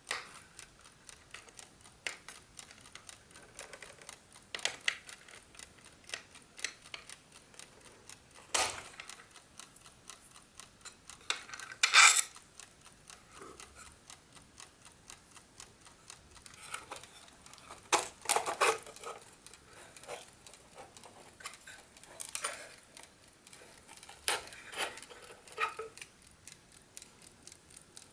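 Clockwork of a GARDE classic wooden analogue chess clock ticking steadily and fast, with louder irregular clicks and knocks from the clock's small parts being handled while a player button is taken off.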